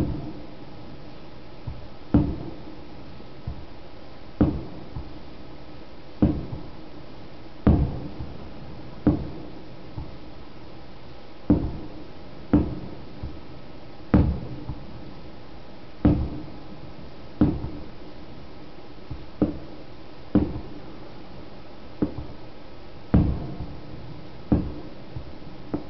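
Japanese fireworks shells bursting one after another, a sharp bang every second or two, each with a short echoing tail, some bangs stronger than others.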